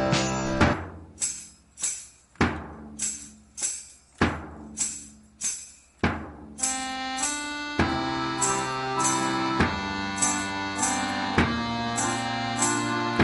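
Background music: a percussion instrument struck on a steady beat, about one and a half strikes a second, joined a little past halfway by sustained pitched instrument notes.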